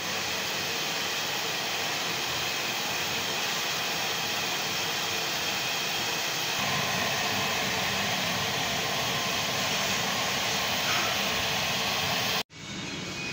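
Steady rushing, hissing noise with no voices. Its tone shifts slightly about seven seconds in.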